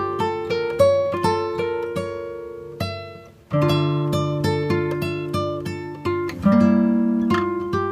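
Background music: acoustic guitar picking a gentle melody over ringing chords, fading briefly about three seconds in before the next phrase starts.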